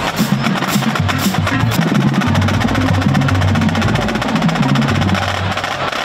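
Marching band music: fast drum strokes and rolls over held low brass notes that step from one pitch to another.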